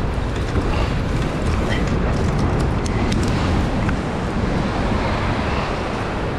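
Boat under way: wind buffeting the microphone over the steady rush of water and the low rumble of the boat's engine.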